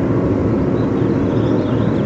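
Boat motor running steadily, a constant low rumble, with a few faint high chirps above it.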